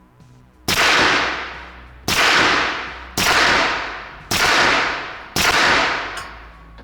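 Five suppressed 9mm shots from a Sterling Mk.6 closed-bolt carbine, fired one at a time about a second apart. Each shot is a sharp crack that fades out over about a second.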